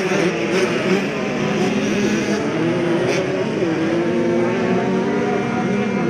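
Several dirt bike engines running at once during a race, their pitches rising and falling as the riders work the throttles.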